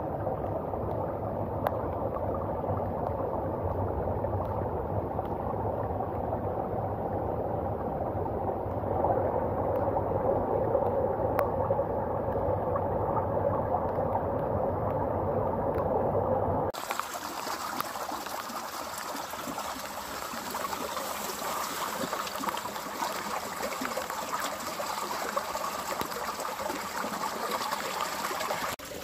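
Water running steadily into a limestone cave mouth, a full, low rush of flowing water. A bit over halfway through it changes abruptly to a brighter, hissier flow of water running between rocks.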